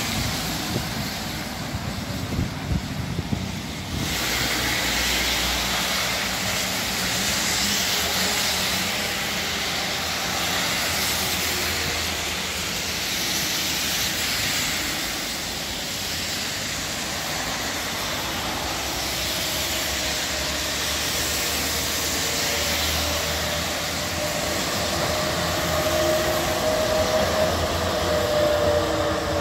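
A city bus running and pulling away, then a steady hiss of traffic on a rain-wet road. Near the end a tram passes with a rising rumble and a whine from its motors and wheels that slides slightly down in pitch.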